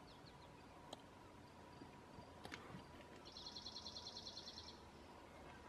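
Near-silent field ambience, with a small bird's high, rapid trill of about ten notes a second lasting about a second and a half, starting about three seconds in.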